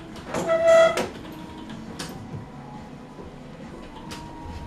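A short, loud squeak with a clear pitch, ending in a click, then a few light clicks and taps as a white plastic smartphone is handled.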